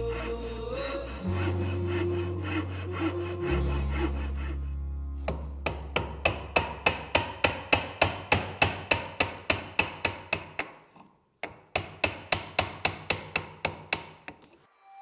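Music with held low notes for the first few seconds, then a Japanese pull saw cutting hardwood in quick, regular strokes, about three a second, with a short pause partway through.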